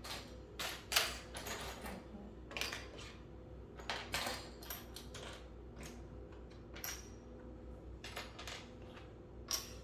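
Loose plastic Lego pieces clattering and clicking in irregular bursts as they are sorted by hand into piles.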